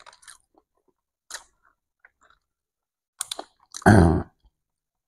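Someone eating rice and side dishes by hand from a cardboard takeaway box: small clicks and rustles of fingers and cardboard, with mouth sounds of chewing. About four seconds in comes a louder, short, low-pitched sound.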